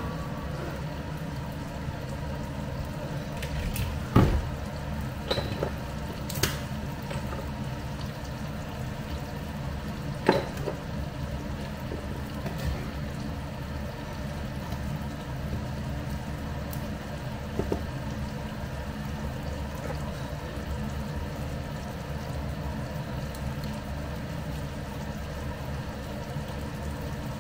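Button mushrooms simmering in steak broth in a frying pan on a gas burner, a steady low bubbling hiss, with a few sharp knocks in the first ten seconds.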